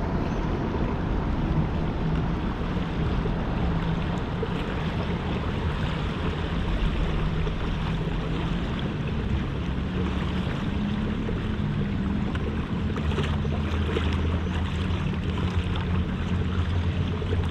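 Old Town Sportsman Autopilot 120 kayak under way on its electric trolling motor: steady rush of water along the hull with a low, even hum and wind on the microphone.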